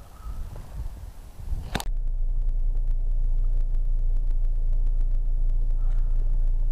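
A sharp click about two seconds in, then the steady low rumble of a car driving, heard from inside the cabin.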